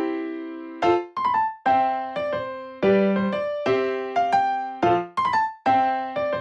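Background music: a gentle piano or electric piano tune, each note or chord struck and left to fade, with short runs of higher notes in between.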